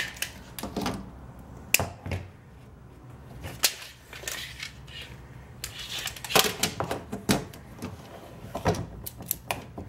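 Irregular sharp clicks and light knocks from a tape measure being pulled out and handled on a beadboard panel.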